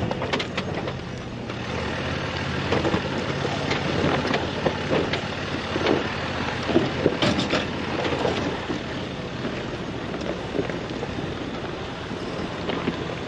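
Off-road vehicle's engine running steadily on a dirt trail, with irregular knocks and crackles over it.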